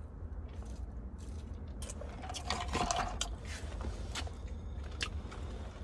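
Soda sipped through a straw from a fast-food cup: small wet slurps and clicks, busiest about two to three seconds in, over a steady low hum.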